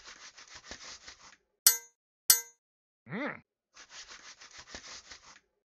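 Cartoon sound effects: a fast rattling patter, two sharp metallic clangs with a ringing tone about half a second apart, a short voice-like sound that rises then falls in pitch, then the rattling patter again.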